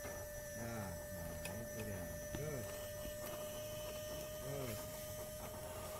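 Scale RC crawler's electric motor and gearbox whining in short throttle bursts, rising and falling in pitch about three times as the truck climbs a dirt slope, over a steady high hum.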